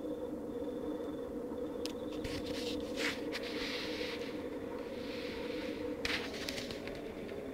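A steady, low droning hum made of two held tones, with a faint high whine that comes and goes. From about two seconds in to about six, rustling, scraping and clicking sounds lie over it.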